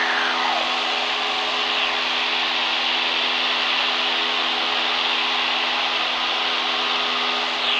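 Cessna 172 cabin noise in flight: the piston engine and propeller drone steadily under a hiss of engine and wind noise, heard through the intercom. A faint whistle glides down in pitch about half a second in.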